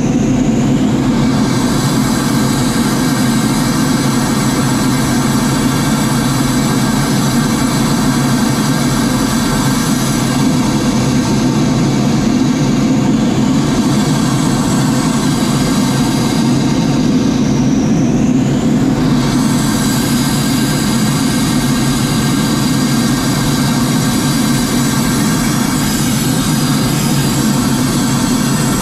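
Cockpit noise of a CF-5D jet on approach to land: the steady drone of its twin J85 turbojet engines mixed with airflow hiss. The high hiss dips briefly twice, around ten and seventeen seconds in.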